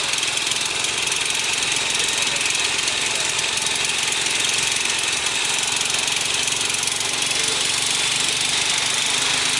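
Steady machinery noise: an unchanging low hum under an even hiss.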